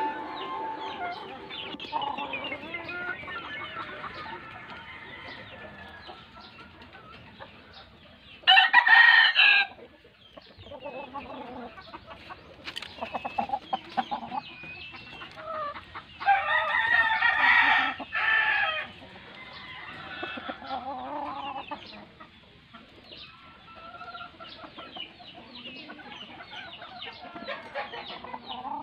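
Roosters crowing twice, a short crow about a third of the way in and a longer one a little past the middle, over steady faint clucking and chirping from chickens.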